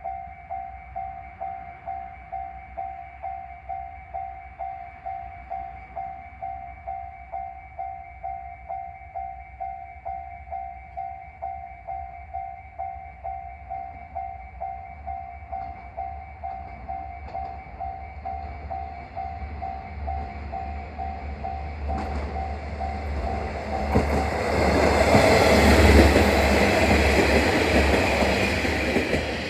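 Level-crossing warning alarm ringing over and over in a steady rhythm. About two-thirds of the way through, a 1200-series diesel railcar approaches and passes close by, its running noise and wheel clicks growing loud and covering the alarm near the end.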